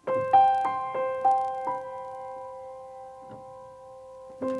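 Piano music: a quick phrase of single notes in the first two seconds rings on as a held chord that slowly fades, and a new phrase of notes begins just before the end.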